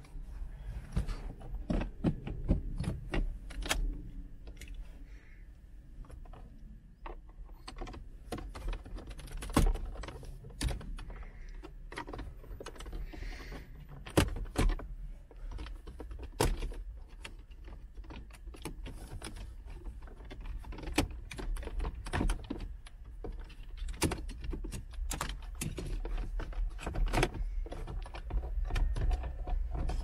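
Plastic interior trim clicking and knocking as the front storage cubby of a VW Golf MK7's centre console is pried loose and lifted out by hand: many scattered sharp clicks and rattles.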